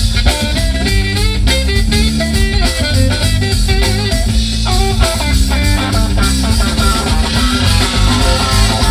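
A live rock band playing, led by electric guitar over a drum kit.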